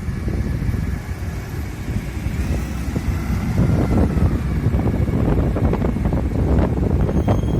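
Strong wind buffeting the microphone, over the sound of passing buses and road traffic with a faint engine whine that dips slightly in pitch partway through.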